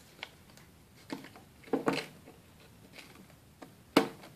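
Paper planner pages being handled and fitted into a Filofax's metal ring binder: a few soft clicks and rustles, then one sharp snap about four seconds in as the rings are closed.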